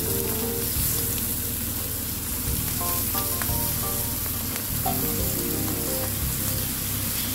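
Green beans and bell peppers sizzling steadily on a hot flat iron tawa, with soft background music underneath.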